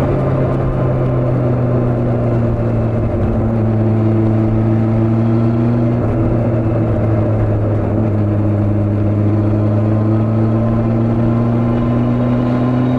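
Honda CB400 motorcycle engine running at a steady cruise under wind rush. Its pitch dips slightly about halfway through, then creeps back up.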